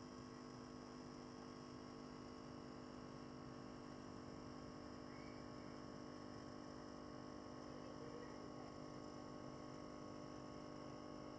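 Faint steady electrical hum with several held tones over a light hiss, unchanging throughout.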